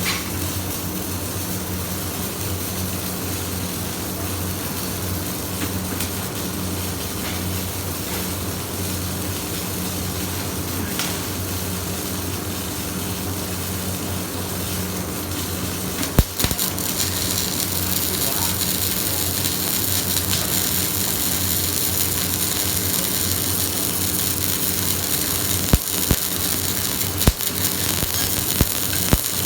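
Electric arc welding: a steady crackling hiss over a low hum from the welding machine. The hiss grows brighter about halfway through, with a few sharp clicks.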